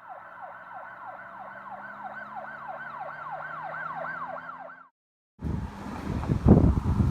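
Emergency vehicle siren in a fast yelp, about three rising-and-falling sweeps a second, cutting off abruptly about five seconds in. After a short gap, wind buffets the microphone with a loud, gusty rumble.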